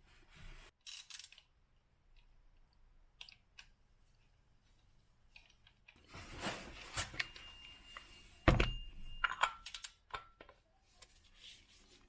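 Handling noises from hands-on work with tools and car parts: scattered clicks and scrapes, a rustling stretch about six seconds in, and a loud knock about eight and a half seconds in, followed by more clicks.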